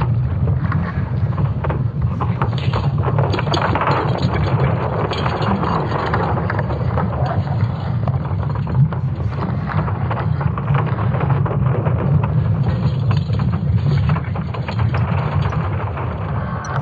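Sonified recording of Earth's magnetic field, converted from ESA Swarm satellite signals: a continuous deep rumble with crackling on top. It is the field being struck by charged particles from a geomagnetic storm and solar flares.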